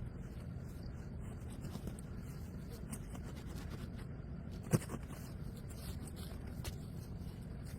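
Faint scratching and ticking over a steady low rumble, with one sharp knock a little past halfway.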